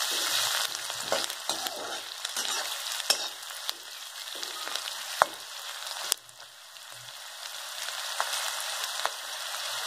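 Sliced onions sizzling in hot oil in a kadhai while a metal spatula stirs them, with occasional clicks and scrapes of the spatula on the pan; the onions are being stir-fried until translucent, not browned. The level dips about six seconds in and then slowly builds again.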